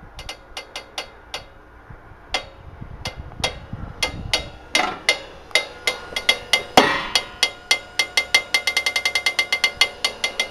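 Homemade sun tracker's rotation drive, a windscreen-wiper motor turning the panel frame through a bicycle chain and sprocket, creaking quite strongly as it turns. Sharp, irregular creaking clicks settle near the end into a fast, even series of about five a second. The owner says the creaking is not always this bad.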